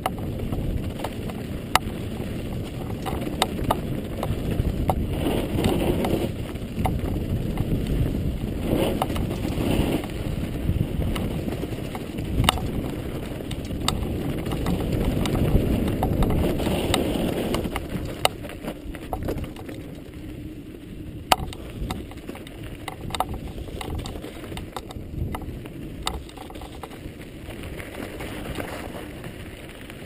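Mountain bike rolling fast down a rocky dirt trail: wind noise and tyre rumble over gravel on a GoPro's microphone, with frequent sharp clicks and rattles from stones and the bike. The rumble is heavier at first and eases off after about 18 seconds.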